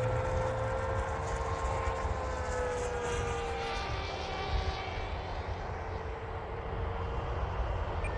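FMS Voodoo electric RC plane flying overhead, its motor and propeller giving a steady whine with a buzz that sounds like a nitro engine. The owner puts the noise down to loose tape over the wheel wells. The pitch drops and fades about three to four seconds in as the plane passes, then a fainter whine returns.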